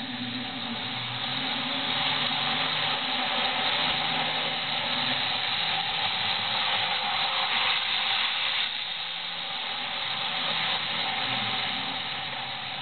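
Model electric train running along the track: a steady hiss of wheels on the rails with a low motor hum beneath, louder through the middle and easing off about two-thirds of the way through.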